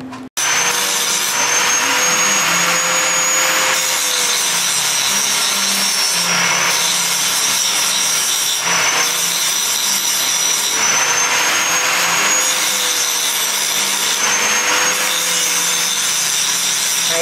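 Steady whirring of an electric motor, with a high whine that wavers slowly up and down and keeps running without a break.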